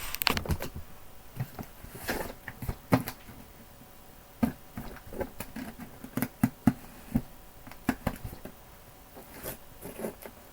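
Fingers picking and scratching at packing tape on a cardboard box: irregular small scrapes, taps and rustles.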